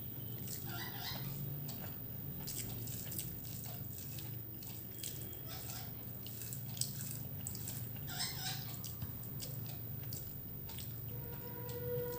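Quiet sounds of a person eating: scattered small clicks and wet mouth sounds of chewing, over a steady low hum. A steady tone starts near the end.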